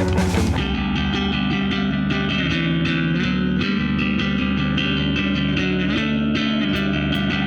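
Background music: a rock instrumental with electric guitar and bass, shifting about half a second in from a heavier, fuller passage to a lighter run of picked guitar notes over bass.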